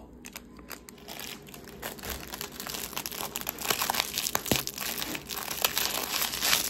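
Crinkling and crackling of a paper or plastic wrapper handled in the fingers close to the microphone, with many small clicks. It gets busier after the first second or so.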